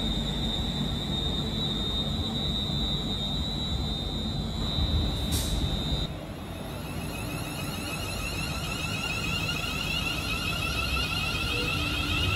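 Class 350 Desiro electric multiple units running through the station, with steady rail and running noise and a high, steady electrical whine. About halfway through, the whine stops and is replaced by several fainter whining tones that keep sliding in pitch.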